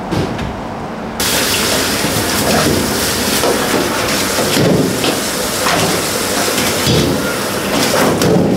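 Kitchen tap running, a steady rushing of water that starts suddenly about a second in, with light knocks of trays and utensils being handled.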